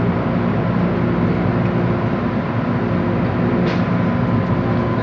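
Steady hum and rumble inside an MTR M-Train carriage, with a few steady whining tones from the train's equipment running under it.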